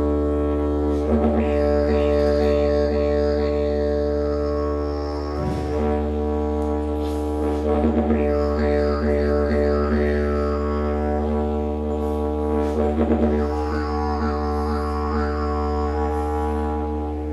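Didgeridoo playing one continuous low drone, its upper overtones wavering as the player shapes the tone. Short rhythmic pulses come in a few times: about a second in, midway, and again later.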